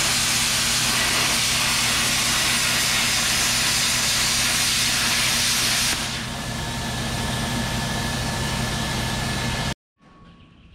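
Oxy-fuel cutting torch cutting and scarfing steel plate on a loader bucket, a loud steady hiss. About six seconds in the hiss softens slightly and a thin whistle joins it; near the end it cuts off suddenly.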